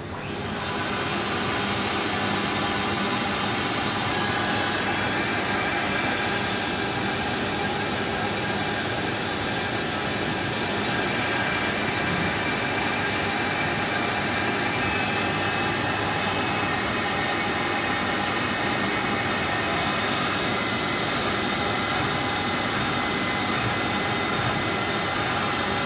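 LPKF ProtoMat S62 PCB milling machine starting its marking-drill stage: it comes up to speed about a second in and then runs with a steady, even noise. A thin high whine comes and goes over it.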